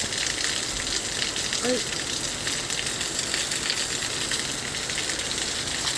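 Heavy rain pouring down in a steady, even hiss, with no letup.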